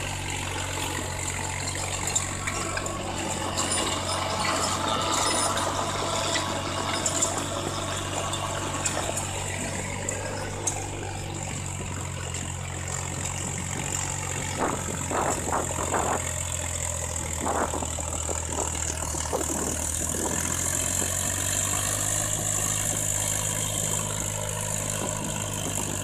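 Diesel tractor engine running steadily under load while driving a rotary tiller through dry soil, with a few sharp knocks about halfway through.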